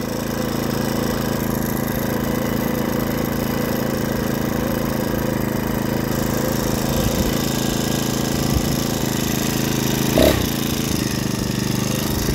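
Small 49cc four-stroke single-cylinder engine of a motorized bicycle running steadily at one unchanging pitch. A brief, higher, bending sound comes over it about ten seconds in.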